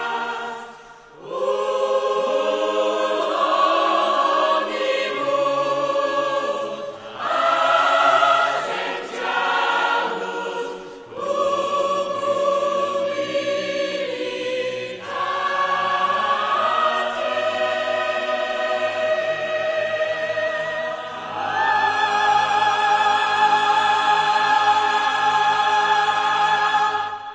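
A choir singing slow, sustained chords in long phrases, with brief pauses between phrases.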